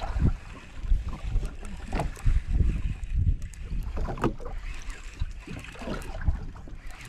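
Wind buffeting the microphone aboard a fishing boat at sea, in uneven low gusts, with scattered knocks and clicks.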